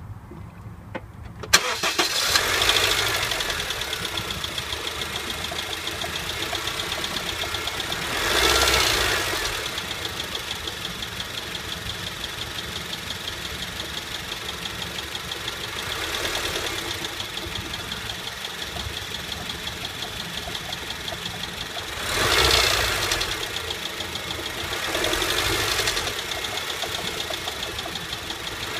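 2008 Honda Civic engine starting about a second and a half in, then running with a loud, rapid ticking knock and a steady high whine, swelling louder about five times. The noise comes from a failing air-conditioning compressor bearing, which later seized.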